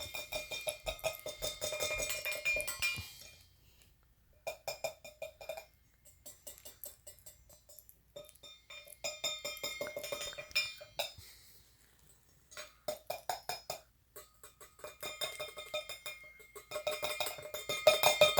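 Rapid metallic clinking with a ringing pitch, coming in repeated bursts of a second or two with short pauses between them, loudest near the end.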